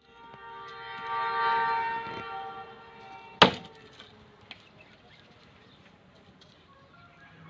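A steady pitched drone with many overtones swells and fades over the first three seconds. About three and a half seconds in comes a single sharp axe chop into wood, the loudest sound.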